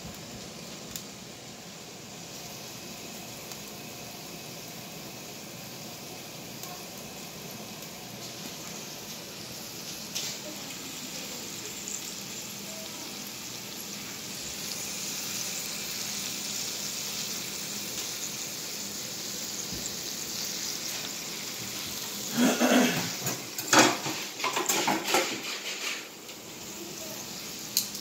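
Marinated steaks sizzling on an electric contact grill, a steady hiss that grows a little louder partway through. Near the end, a few seconds of louder knocks and clatter.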